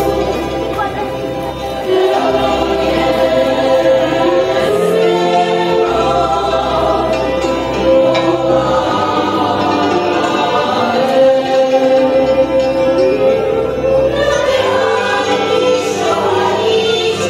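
A women's folk choir singing a Moravian folk song together in several voices, with long held notes and sliding pitches.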